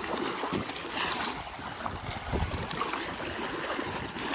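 Water splashing and trickling around a small homemade catamaran floating on a river current.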